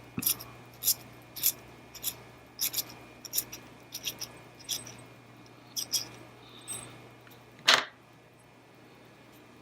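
Small metal clicks and taps, roughly one or two a second, as the nut and washer are worked off an N-connector pigtail by hand. A single louder clack comes near the end.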